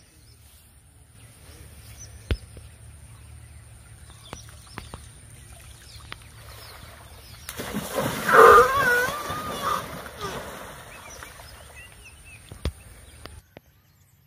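Wild Asian elephant splashing the pond water hard with its trunk about eight seconds in, a loud rush of water lasting a couple of seconds. Birds chirp faintly around it.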